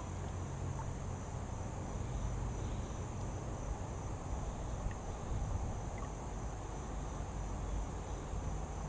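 Insects, crickets or cicadas, calling in a steady, unbroken high-pitched drone over a low rumble.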